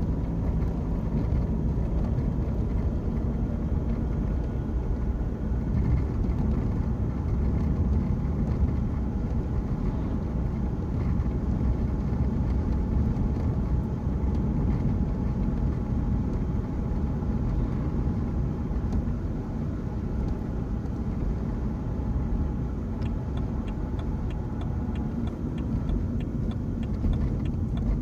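Diesel BMW 1 Series driving in gear, heard from inside the cabin: steady engine and road rumble with a faint, thin gearbox whine on top, an unusual noise that disappears when the clutch is pressed and that the owner suspects comes from a bearing. Near the end a light rapid rattle comes from the phone cradle.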